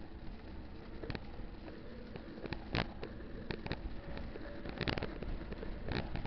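Wind rumbling on the microphone of a camera on a moving mountain bike, with irregular sharp clicks and knocks from the bike and camera mount, the loudest a little under three seconds in and again near five seconds in.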